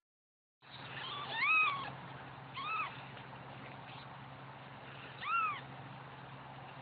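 Kitten mewing three times over a steady low hum. Each mew is a short cry that rises and then falls in pitch, and the first is the loudest.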